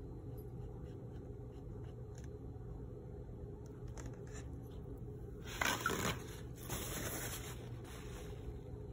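Paper towel rustling and scraping over wet watercolour paper in two short loud bursts, the first about five and a half seconds in and the second about a second later, over a steady low hum.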